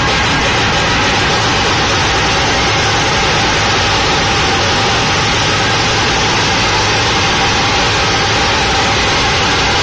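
Massed dhol drums of a Nashik dhol troupe beaten together, a loud, dense, unbroken wall of drumming in which single beats do not stand apart.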